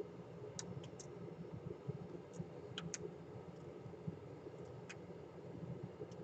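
Scattered light clicks and taps from small phone parts and tools being handled while an iPhone 6 is reassembled for testing. The clicks come in small clusters, over a faint steady low hum.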